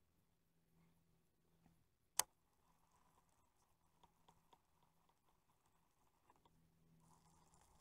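Near silence, broken by one sharp click about two seconds in and a few faint ticks later.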